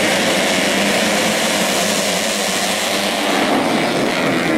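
A pack of modified four-stroke 125 cc underbone race motorcycles running at high revs together, heard as one loud, steady, blended engine drone.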